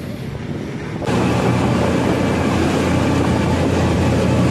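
Small fishing boat's engine running steadily underway, with wind and water rush. It cuts in abruptly and loudly about a second in.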